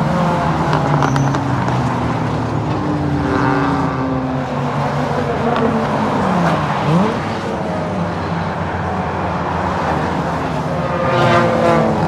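Several race car engines running at once as a pack goes round the circuit, their pitches rising and falling through gear changes. About seven seconds in, one engine drops in pitch and then climbs sharply under acceleration, and the sound swells near the end as cars come closer.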